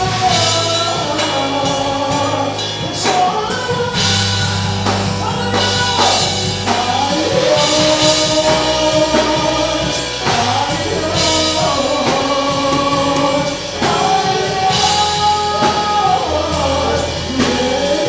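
Gospel praise-and-worship music: voices singing a melody over bass and a drum kit.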